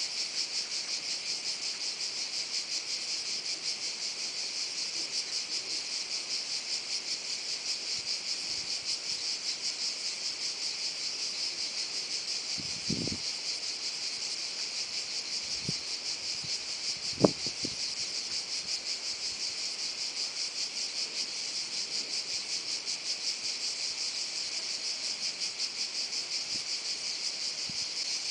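Steady insect chorus, a high shrill with a fine, rapid pulsing. A few brief thumps come around the middle, one of them sharp.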